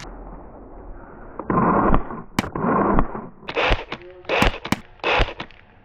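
Airsoft guns firing: two short bursts about a second and a half in, then a quick string of sharp single cracks and short bursts.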